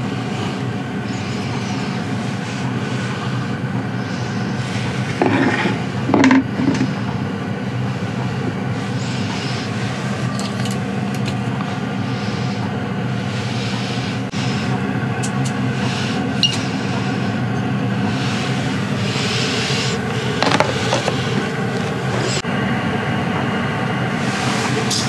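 Steady hum of a diesel air heater running. A few short knocks and scrapes from handling fishing tackle break in twice.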